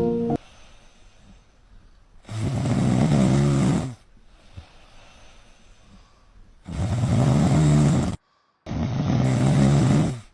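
A person snoring loudly: three long snores, each about a second and a half, with quiet breathing between them.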